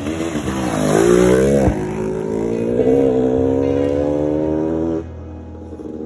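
Dirt bike engine revving as the bike rides by on a dirt track, its pitch dropping suddenly as it passes, then a steady engine note rising slowly until it cuts off about a second before the end.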